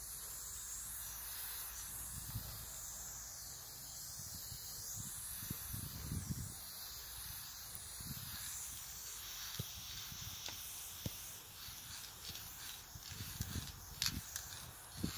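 Aerosol spray paint can (Montana Black) hissing as red paint is sprayed onto a wall, a steady spray for about eight seconds, then shorter, broken spurts with a few small knocks.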